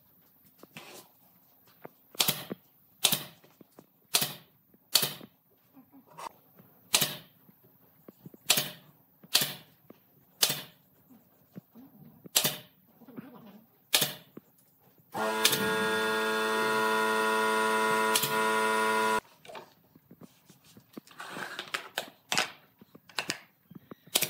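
Pneumatic nail gun firing into pine boards, one sharp crack at a time, about a second apart. In the middle a steady hum runs for about four seconds and stops abruptly.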